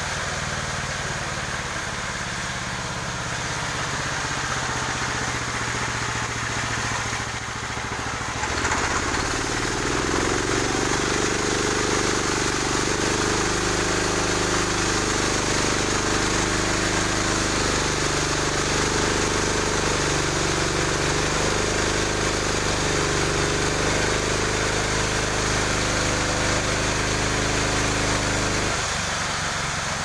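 Portable band sawmill running. About eight seconds in, the band blade goes into a log and the sound grows louder with a wavering hum under load as it cuts; near the end the cut finishes and it drops back to a plain, steady running.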